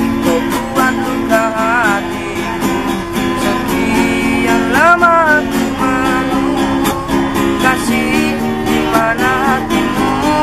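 Acoustic guitar strummed in a steady rhythm as a song's outro. A few sliding wordless melody phrases rise over the chords, about two seconds in, about five seconds in, and near the end.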